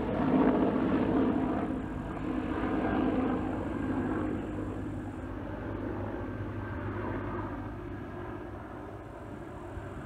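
A distant engine droning, loudest in the first few seconds and then slowly fading away.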